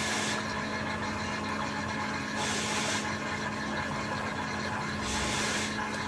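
Nescafé Alegria coffee vending machine dispensing a drink into a cup: a steady motor hum, with three short hisses about two and a half seconds apart.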